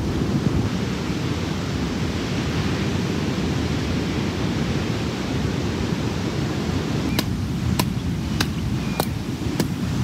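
Steady wind and surf noise on a seashore, with wind rumbling on the microphone. Near the end comes a run of five or six sharp taps, evenly spaced a little over half a second apart.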